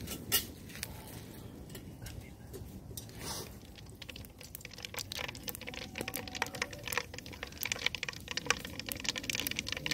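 Mustard seeds, with fenugreek and cumin, popping and spluttering in hot oil in an aluminium kadai as a tempering. Scattered clicks at first build into dense crackling from about halfway through, the sign that the oil is hot enough and the seeds are done.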